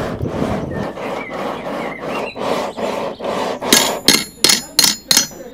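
Hammer blows on metal: about six sharp, ringing strikes in under two seconds, starting about two-thirds of the way in, like blacksmith forging. Before them, a steady rushing, crackling noise.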